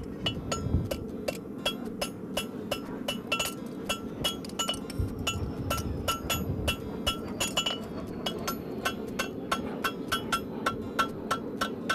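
Hand hammer striking a steel horseshoe on an anvil in a steady run of quick blows, about three to four a second, each with a short metallic ring. The farrier is drawing a toe clip on a heartbar shoe, working it from the base up to the point.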